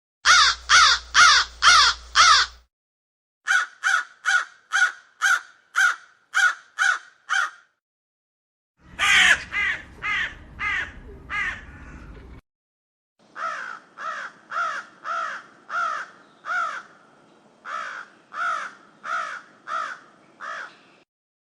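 Crow cawing in four rapid runs of harsh calls, about two to three caws a second, with short pauses between the runs.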